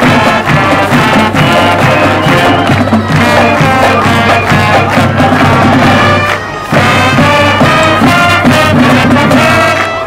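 High school marching band playing loudly, brass over drums and percussion, with a brief break about six and a half seconds in and another at the end.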